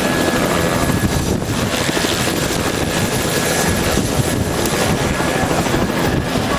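Helicopter running on a rooftop pad: loud steady rotor noise with a thin, steady high whine on top.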